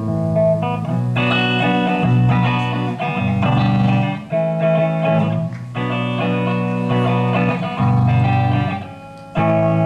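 Live rock band music without vocals: electric guitar playing rhythmic chords over bass, briefly dropping away near the end before coming back in.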